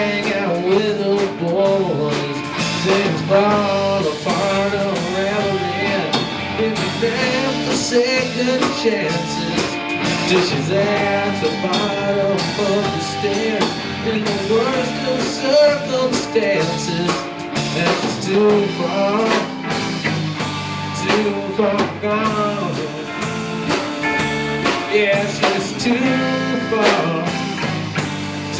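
Live band playing amplified music with electric guitars, electric bass and drums, loud and steady, including bending lead notes.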